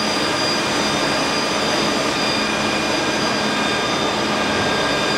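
UV LED curing machine running, its lamp-head cooling fans giving a steady rushing noise with several constant whining tones over it.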